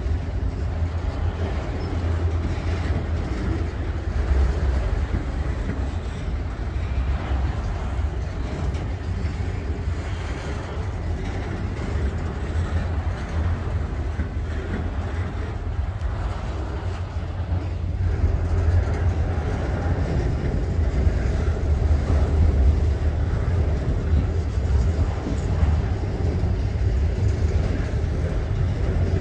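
Freight train of autorack cars rolling past: a steady rumble of steel wheels on rail with faint clicks, a little louder from about eighteen seconds in.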